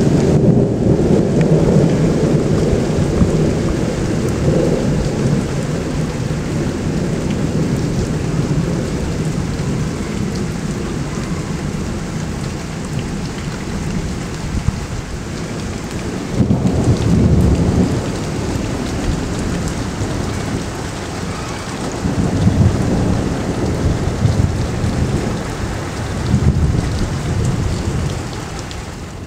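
Thunder rumbling over steady, heavy rain. A long rolling rumble at the start fades over several seconds, and further rumbles come a little past halfway and twice more near the end.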